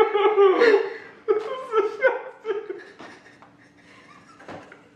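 Two young men laughing hard with mouthpieces holding their lips open. The laughter is loudest in the first two seconds and dies down after about three seconds.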